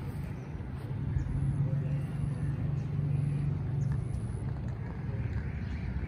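Road traffic: a steady low engine hum that swells for a few seconds, about a second in, as a vehicle goes by.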